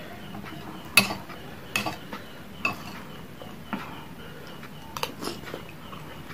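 Metal spoon clinking against a ceramic bowl of bakso meatball soup, about six sharp knocks with the loudest about a second in, while he scoops from the bowl. Fainter chewing and slurping sounds lie between the knocks.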